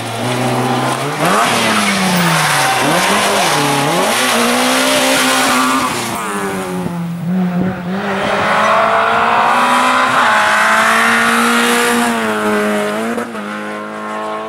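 Rally car engines at stage pace, one car and then another. First the revs swoop down and up several times through gear changes. Then a Renault Clio rally car holds high revs for several seconds before its pitch drops near the end.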